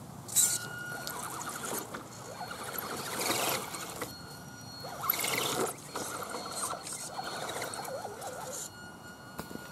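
Axial SCX10 RC crawler's electric motor and drivetrain whining, its pitch wavering as the throttle is worked while it crawls through mud, with several louder surges.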